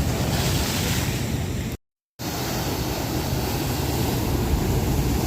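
Ocean surf rolling in and breaking on the shore: a steady rush with a heavy low rumble. The sound cuts out to dead silence for under half a second about two seconds in, then resumes.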